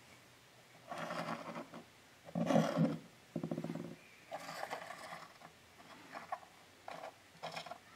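A man's short strained grunts and groans of effort, several in a row, one with a rattly buzz.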